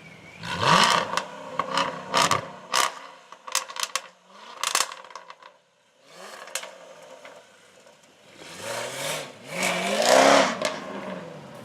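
An exotic sports car's engine revving hard. A quick rev about a second in is followed by a string of sharp exhaust pops and cracks over the next few seconds. After a brief lull, two more revs rise and fall near the end.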